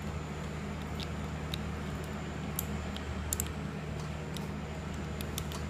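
Scattered light clicks and ticks of small keyboard parts being handled, about ten spread irregularly, over a steady low electrical hum.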